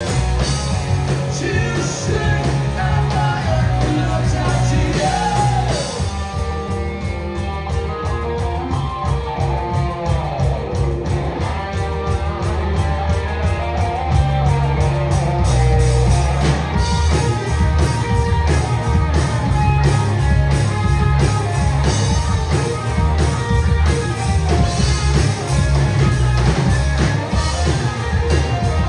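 Live rock band playing, with electric lead guitar over bass and a steady drum beat.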